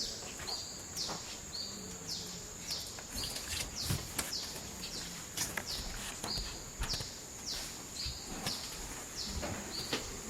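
Tropical rainforest ambience: a steady high-pitched insect drone, and an animal calling over and over, each falling note followed by a short flat one. A few faint knocks come in between.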